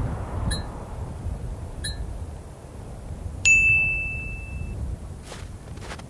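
A single bright bell-like ding rings out just past halfway and dies away over about a second, after two faint short pips, over a low steady rumble. Footsteps begin near the end.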